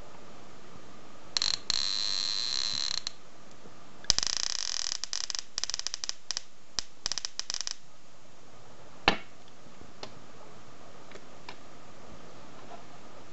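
Electric sparks jumping from a banana plug to the output sockets of a homemade high-voltage cascade generator: a buzzing, crackling arc for about a second and a half, then a longer run of sputtering crackles that break up into separate snaps. One sharp click follows a little later.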